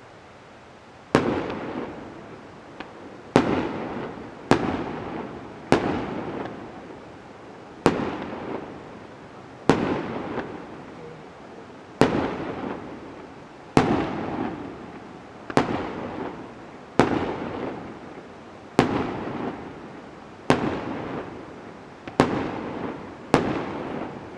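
Firework shells bursting one after another, about fourteen sharp bangs spaced a second or two apart. Each bang trails off in a long echoing rumble.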